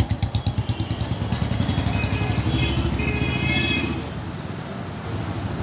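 Motorcycle engine running close by with a fast low pulse, over general street traffic noise. A few high, steady tones sound briefly near the middle.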